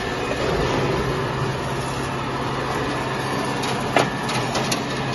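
Linear vibrating screen sorting cracked corn, running with a steady mechanical hum and rattle from its vibration motors and shaking decks, while grits and grain pour out into plastic buckets. A few sharp ticks come near the end, the loudest about four seconds in.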